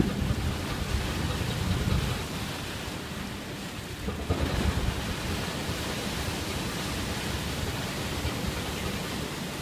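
Water churning and rushing in a small coastal cargo ship's propeller wash as it comes alongside the quay, over a low steady rumble. The rush swells louder about four seconds in.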